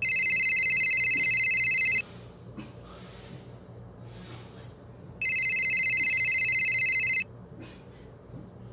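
An electronic ringing tone sounds twice. Each ring is steady, high-pitched and about two seconds long, with about three seconds between them.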